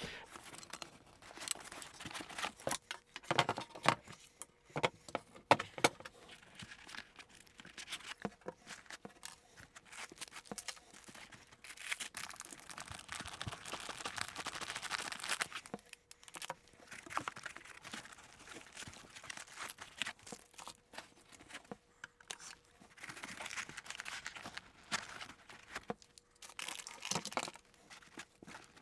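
Unpacking by hand: plastic-bagged parts and foam inserts rustling and crinkling as they are lifted out of a shipping box, with scattered light knocks and clunks as components are set down. The longest stretch of crinkling comes about halfway through.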